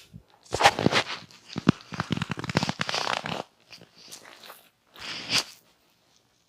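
Close-miked hand massage sounds: a dense run of crackling rubbing and slapping strokes for about three seconds, then softer rubbing and one short burst near the end.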